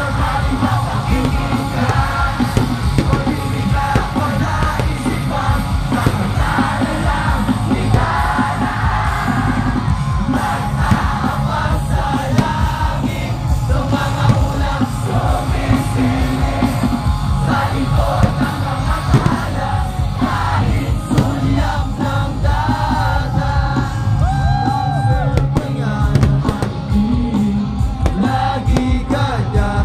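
A live rock band playing loudly through a concert sound system, with the crowd singing along and yelling.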